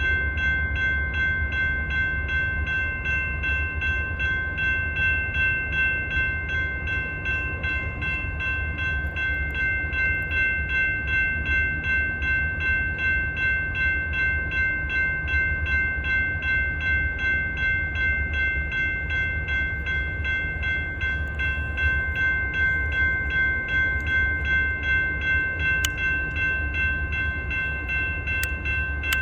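Railroad grade-crossing bell ringing steadily in quick, even strokes, over the low rumble of a train.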